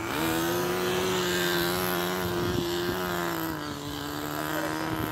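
Small combustion engine of a radio-controlled truck running with a steady, high buzzing pitch that drops slightly about three and a half seconds in.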